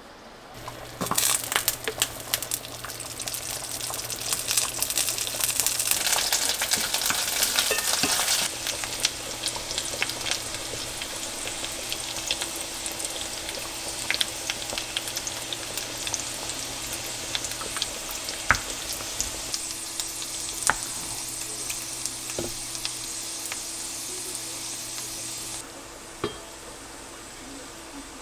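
Food sizzling in a hot frying pan, loudest over the first several seconds and then settling to a steadier sizzle, with scattered light clicks of a utensil stirring against the pan. The sizzle drops away near the end.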